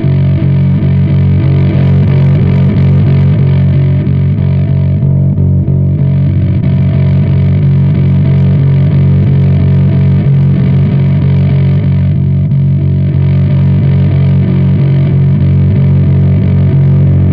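Electric bass played through a Dobsky V3 fuzz pedal into Peavey bass amps: a thick, distorted, sustained low drone. Its high fizz drops out briefly twice, about five and twelve seconds in.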